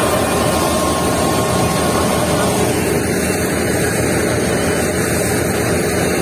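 Tractor-driven crop thresher running steadily, a loud, even mechanical noise of the threshing drum and the tractor engine driving it, while mustard crop is threshed.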